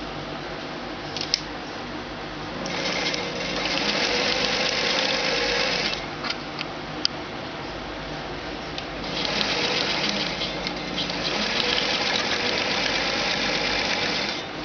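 Electric sewing machine stitching a seam through folded fabric in two runs: one starting about two and a half seconds in and lasting about three seconds, the other from about nine seconds until just before the end. A few sharp clicks sound before and between the runs.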